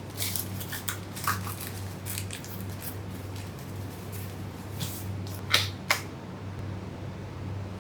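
Papers and packaging being handled during an unboxing: light rustling and small clicks, with two sharper clicks about five and a half seconds in, over a steady low hum.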